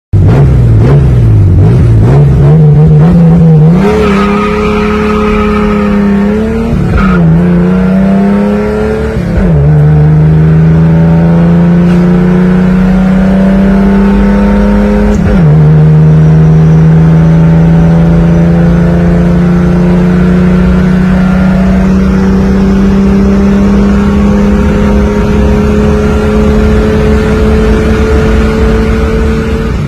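Chevrolet Opala's engine running loud through a drag-strip launch. It revs unevenly for the first few seconds, then climbs steadily in pitch. Gear changes drop the pitch about nine and a half seconds in and again around fifteen seconds, and a long, slowly rising pull follows.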